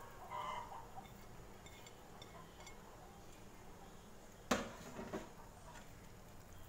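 Metal spatula knocking against a pan while working boiled cassava leaves into coconut-milk curry: one sharp clink about four and a half seconds in, followed by a couple of lighter taps.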